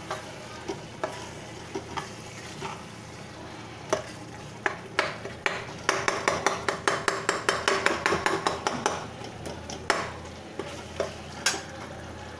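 Metal ladle stirring fried onion masala in a kadhai, scraping and clinking against the pan over a light sizzle of frying oil. About halfway through the strokes come quickly, several a second, for about three seconds.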